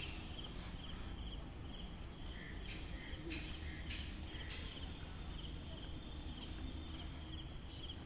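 Insects chirping in short, evenly spaced bursts, about two a second, over a steady low rumble, with a few faint clicks about three to four seconds in.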